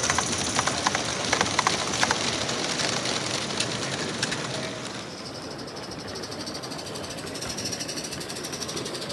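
16mm-scale model train running past on metal track, its wheels clicking rapidly over the rail joints. About five seconds in, the clicking fades to a quieter, steadier running sound.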